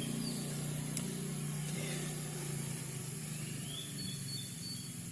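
Steady low hum of outdoor background with faint bird chirps, and one sharp click about a second in.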